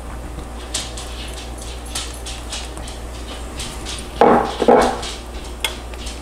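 A dog barks twice in quick succession about four seconds in. Light scrapes and clinks of a metal spoon spreading barbecue sauce in a frying pan come before and after the barks.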